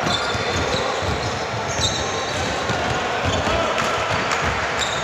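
A basketball bouncing on a hard court during play, with irregular low thumps over a steady background of game noise and a few short high squeaks.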